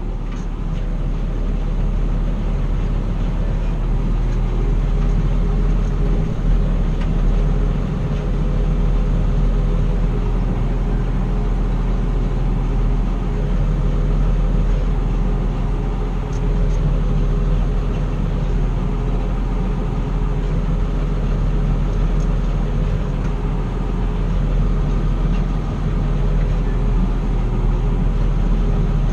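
Engine of harvest machinery running steadily, a constant low drone.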